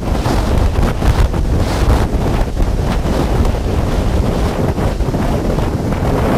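Strong supercell outflow wind blasting the microphone, a loud low rumble that swells and eases in gusts.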